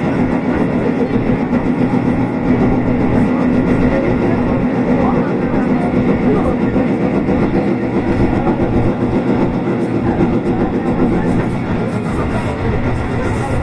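Tobu 8000 series electric train running along the line, heard on board: a steady motor hum over continuous wheel and rail noise.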